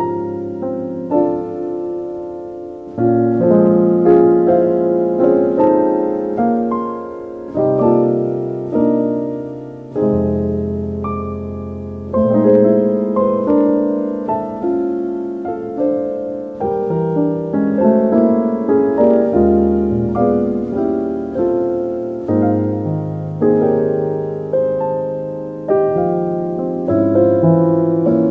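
Slow, calm piano music: chords and single notes struck one after another, each ringing and fading.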